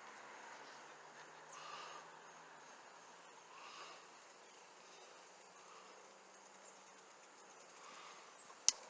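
Faint background noise with soft swells every couple of seconds and a low steady hum, broken by one sharp click near the end.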